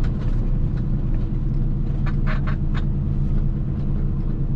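Mercedes-Benz Actros MP4 tractor unit's diesel engine droning steadily inside the cab while driving. A few short, sharp, higher-pitched sounds come quickly one after another about two seconds in.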